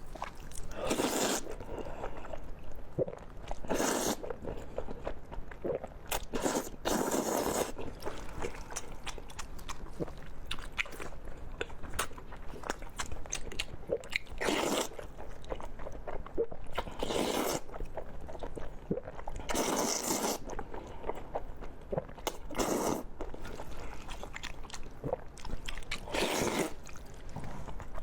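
Close-miked mukbang eating: a person bites and crunches into food about eight times, every few seconds, with soft chewing and small mouth clicks in between.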